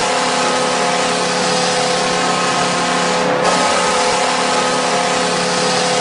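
Buffalo Sabres arena goal horn blaring in a long, steady blast, with one brief break about three and a half seconds in.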